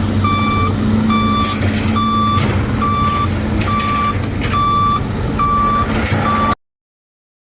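Back-up alarm on a heavy mine vehicle beeping steadily, a bit more than one beep a second, over a diesel engine running. The sound cuts off suddenly near the end.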